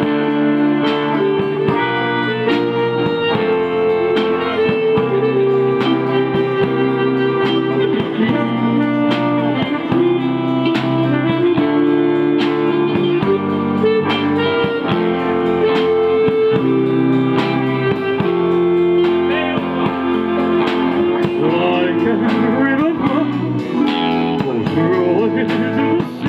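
Live band playing a song on electric guitars and drums.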